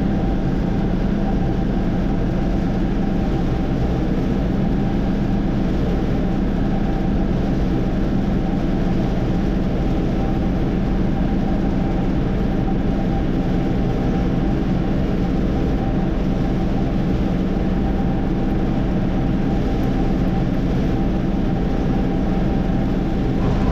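Combine harvester's diesel engine and threshing machinery running steadily at working speed, a constant drone with a low rumble.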